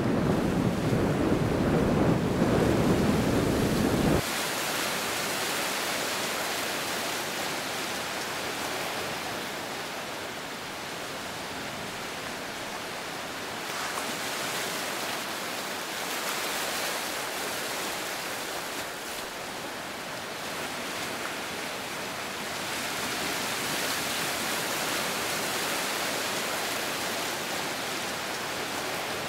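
Wind rumbling on the microphone over sea surf, cut off abruptly about four seconds in. Then a steady hiss of surf that swells and eases slowly.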